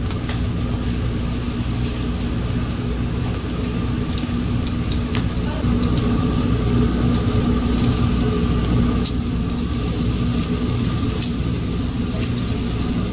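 Fish grilling on a metal grate over coal briquettes, with scattered sharp crackles and clicks over a steady low rumble and hum.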